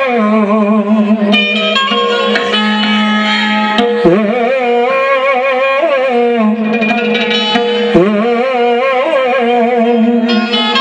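Qawwali music: the lead singer holds long wordless sung notes that bend and waver in pitch over sustained harmonium chords.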